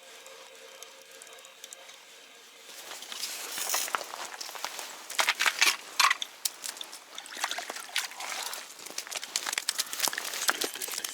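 A fish being landed through an ice hole: water sloshing and trickling, then a run of sharp slaps, crackles and rustles as the fish flaps and is handled, loudest about halfway through.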